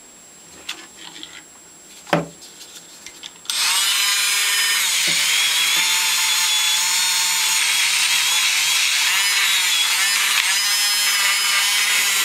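A few handling clicks and a sharp knock of metal parts, then about three and a half seconds in a hand-held rotary tool starts with a high, steady whine. Its small brush attachment scrubs the metal cap of a Stanley No. 113 plane clean.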